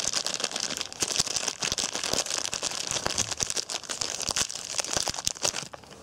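Paper tissue being crumpled by hand close to the microphone: a dense crackling rustle that stops abruptly shortly before the end.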